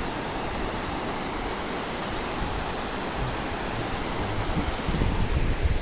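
Mountain stream rushing: a steady hiss of flowing water, with some low rumbling near the end.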